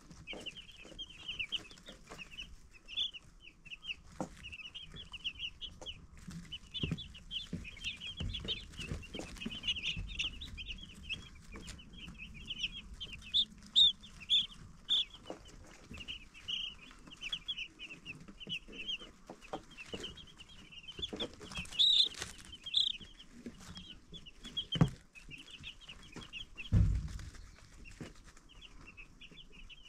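A flock of baby chicks peeping: many short, high chirps overlapping without a break. Now and then there is a soft low thump, the loudest about 27 seconds in.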